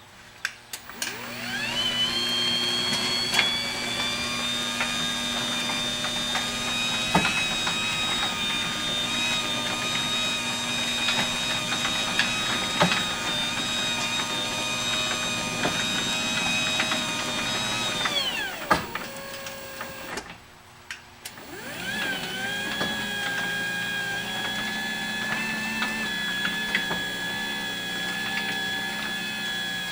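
LiftMaster jackshaft (side-mount) garage door opener with battery backup running: a steady motor whine rises in pitch as it starts, holds level for about seventeen seconds, then winds down to a stop. After a pause of about two seconds it starts again and runs steadily, with faint clicks throughout.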